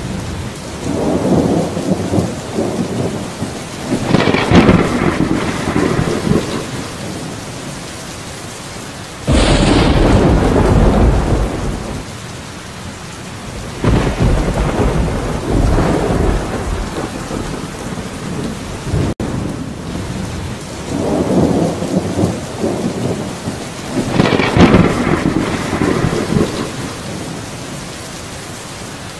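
Steady heavy rain with rolling thunder: long low rumbles that swell and fade several times, and a sudden loud thunderclap about nine seconds in.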